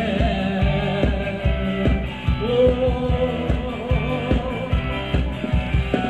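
Band music for Thai ramwong dancing: a steady, driving drum beat under a singing voice, with one note held for about a second near the middle.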